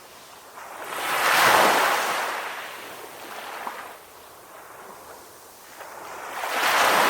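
Sea waves breaking on a shore: two surges, about 1.5 s in and again near the end, each swelling into a wash of surf and fading away.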